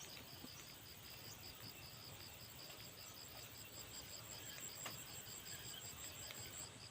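An insect calling in an even run of short high pulses, about four a second, with one faint tick about five seconds in.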